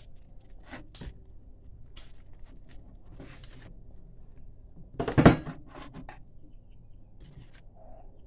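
Metal pliers-type multi-tool and a spiny porcupinefish being handled on a kitchen countertop: scattered clicks and scrapes, with a louder clatter about five seconds in.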